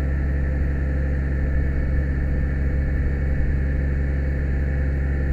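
Aerial ladder fire truck's diesel engine running steadily to power the ladder's hydraulics: a low, even drone with no change in pitch.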